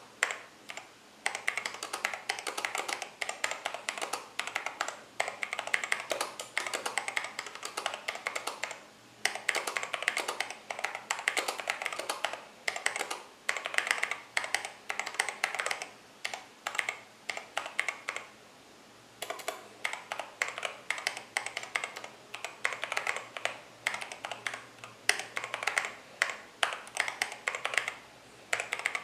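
Mechanical keyboard with Halo True tactile switches being typed on: rapid runs of keystrokes with brief pauses, the longest about 19 seconds in.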